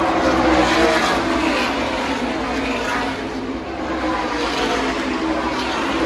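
NASCAR Craftsman Truck Series trucks' V8 engines running past on the track, their engine pitch dropping as each one goes by.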